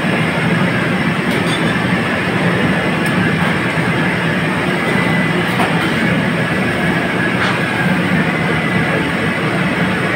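Commercial wok burner running with a steady roar under the crackle of food frying in a wok of hot, bubbling oil. A metal spatula and ladle knock lightly against the wok a few times.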